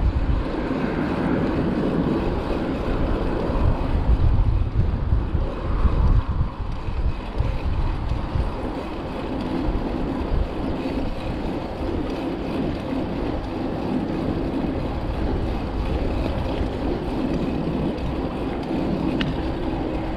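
Wind rushing and buffeting over the camera microphone of a mountain bike riding along a tarmac road, with gusty low rumbling.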